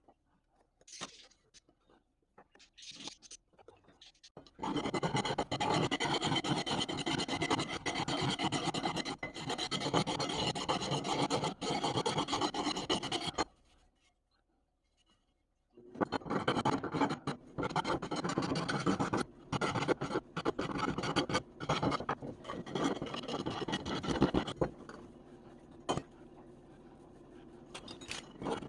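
Continuous abrasive scraping and rasping in two long stretches separated by a short pause, the second broken into choppier strokes and fading near the end before starting up again.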